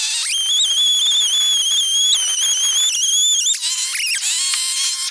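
Bandsaw cutting into a cherry burl: a loud, high-pitched whine that holds steady and then drops lower about three and a half seconds in.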